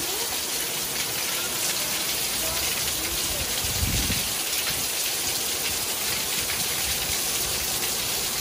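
Heavy rain falling steadily, with water pouring off the edge of a roof and splashing down.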